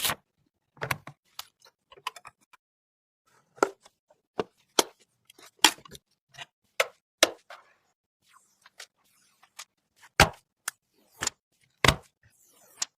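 Irregular sharp clicks, taps and knocks of PC hardware being handled and fitted during a build, about twenty in all with short silences between. Two heavier knocks come near the end.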